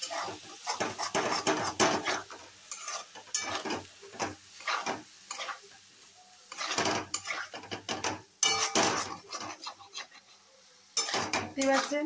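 Spatula scraping and knocking against a metal kadai in quick, irregular strokes as a potato and pointed-gourd curry is stirred and fried. The stirring pauses briefly about halfway through and again near the end.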